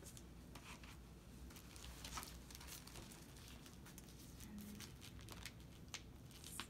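Faint crinkling and rustling of gloved hands pressing an ostomy wafer and its plastic backing into place, with scattered small clicks.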